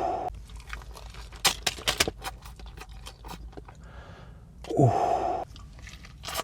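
Close-miked chewing of a steakburger, with sharp wet mouth clicks and crunches. About five seconds in there is a brief, louder sound whose pitch falls.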